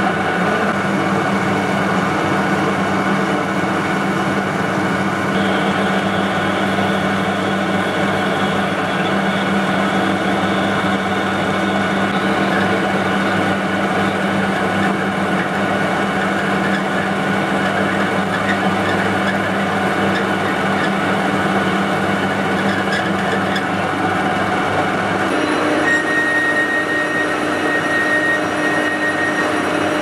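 Metal lathe running steadily while a large twist drill bores into the centre of a turned steel bar: a continuous machine hum with several held tones. About 25 seconds in, the tones shift to a new steady pitch as a different cut takes over.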